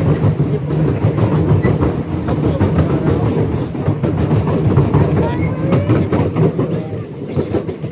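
Park railroad train running along the track: a steady rumble with wheels clicking over the rail joints.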